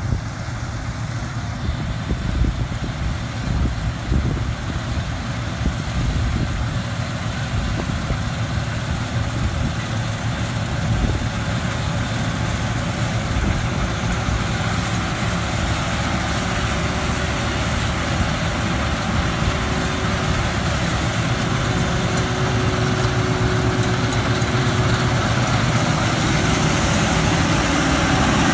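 Claas Lexion 460 combine harvester running while harvesting, its engine and threshing machinery growing steadily louder as it draws close.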